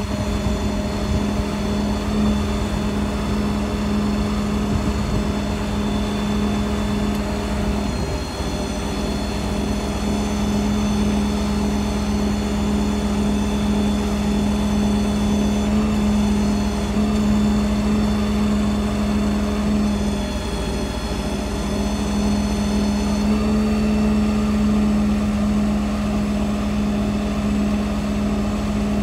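An engine running steadily at a constant speed: a continuous hum with a fainter high whine above it, dipping briefly about eight and twenty seconds in.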